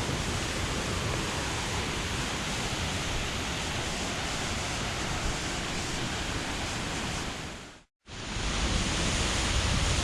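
Steady rushing roar of a large waterfall. Near the end it fades out briefly to silence and comes back with a heavier low rumble.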